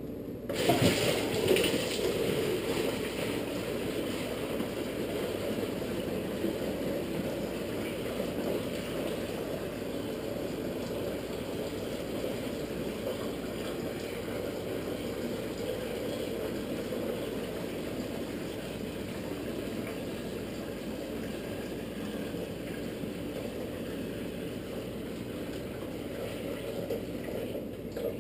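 Yeasted moonshine wash pouring steadily from a plastic bucket through a funnel into a water-cooler jug (the fermentation vessel), splashing and gurgling, with a louder splash as the pour starts about a second in.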